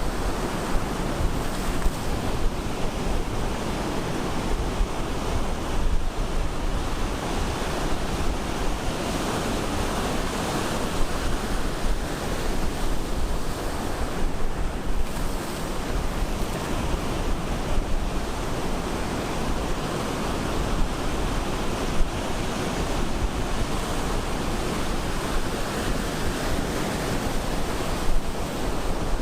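Ocean surf breaking on the beach: a steady, continuous rush of waves.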